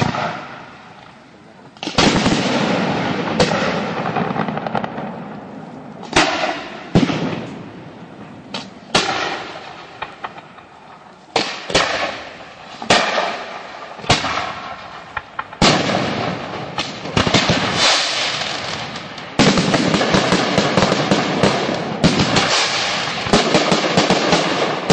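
Battle-reenactment pyrotechnics: a series of loud bangs a second or two apart, each fading out over a second or so, giving way about twenty seconds in to dense, continuous crackling and popping.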